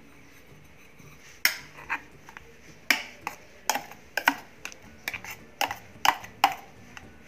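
A steel spoon clinking and scraping against a steel mixer-grinder jar as thick potato paste is worked out of it into a steel bowl. There are about a dozen sharp, irregular clinks, starting about a second and a half in.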